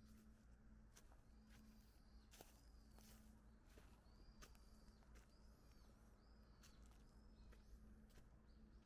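Faint footsteps crunching on dry fallen leaves, heard as scattered irregular crackles, with a bird repeating short high call notes that rise and fall.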